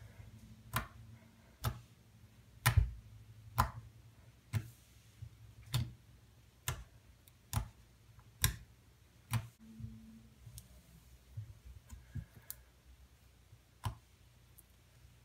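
Blue glue-and-detergent slime being poked and pressed with fingertips, giving a sharp pop or click about once a second, then smaller, more scattered clicks in the second half.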